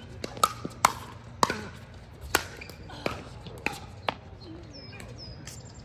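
Sharp pops of a pickleball struck by paddles and bouncing on the court during a rally: a quick run of four hits in the first second of a fast net exchange, then single hits spaced out, the last about four seconds in.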